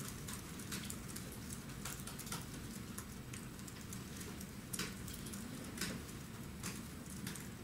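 Scattered light clicks and taps, a few each second, from reporters typing on laptop keyboards, over a low steady room hum.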